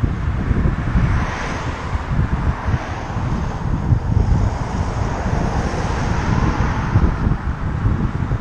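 Wind buffeting the microphone of a bike-mounted camera while riding, an uneven low rumble over a steady hiss of air and road.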